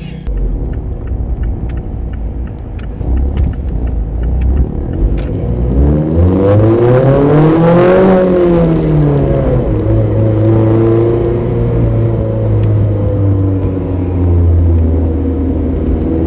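Mazda ND Roadster's inline-four engine heard from inside the car as it drives. After a low rumble with a few light clicks, the revs climb from about six seconds in, peak near eight seconds, drop back, and then hold a steady note.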